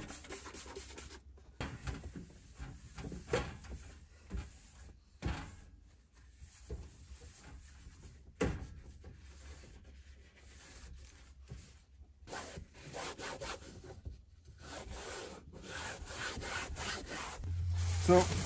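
Hand-wiping a hard stovetop cover with a cleaning rag: irregular rubbing strokes with short pauses and a few light knocks. A low steady hum comes in near the end.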